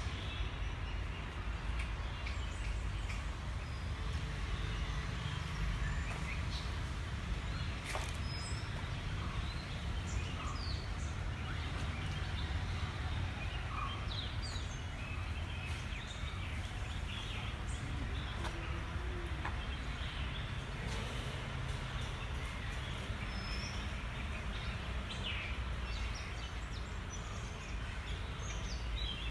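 Outdoor ambience of many small birds giving short, scattered chirps and whistles over a steady low rumble.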